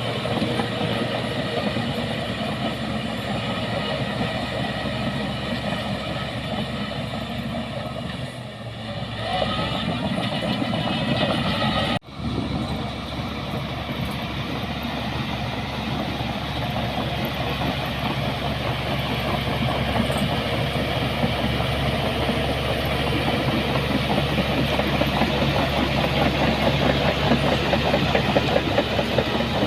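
Bulldozer's diesel engine running under load with the clatter of its steel tracks, steady apart from a short dip and a brief break about twelve seconds in.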